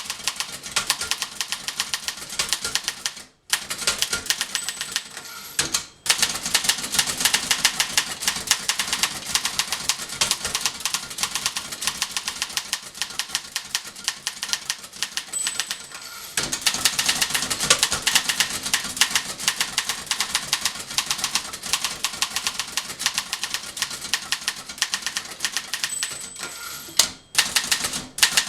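1911 Continental Standard manual typewriter being typed on at a brisk, steady pace: a rapid run of key and typebar strikes with a few short pauses. A brief high ring, likely the margin bell, sounds about every ten seconds.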